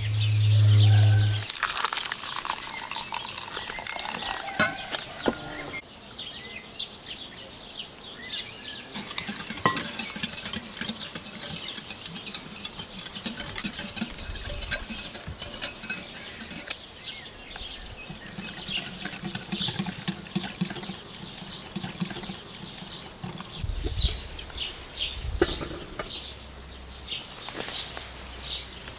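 A metal wire whisk clicking and scraping against a glass bowl as it stirs a thin liquid, with small birds chirping repeatedly in the background. A short, loud low rumble comes right at the start.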